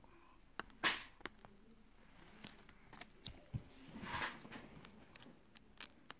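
Small plastic blister pack being cut with scissors and picked open by hand: scattered sharp snips and plastic clicks, the loudest about a second in, with a brief rustle of the plastic about four seconds in.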